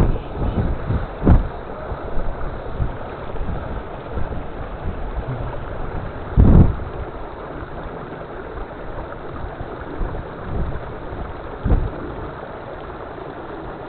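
Steady rushing of a mountain waterfall, with a few brief low thumps of wind buffeting the microphone: about a second in, halfway through and near the end.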